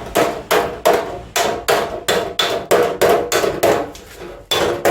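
Hammer blows on a car's metal fender panel in panel beating, about three strikes a second, each leaving a short metallic ring, with a brief pause near the end.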